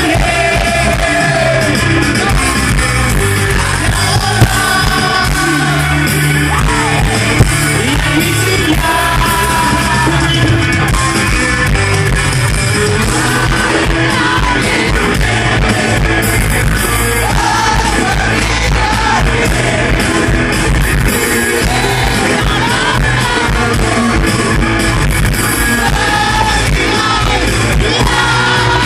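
Live rock band playing loud, with a male lead singer singing into a microphone over amplified guitars, recorded from the audience.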